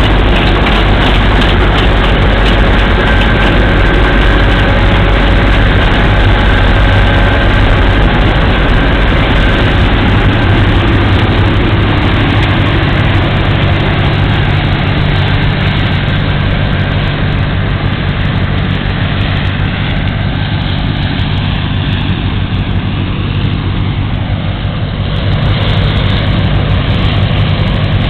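John Deere 6600 combine's diesel engine running steadily under load, with the combine's machinery working while it harvests rye. The low engine tone shifts about a third of the way in, and the sound dips slightly past the middle and comes back up near the end.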